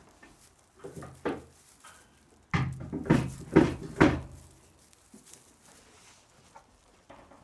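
A run of knocks and thumps: two light ones about a second in, then about five sharper ones in quick succession, roughly three a second, from about two and a half seconds in.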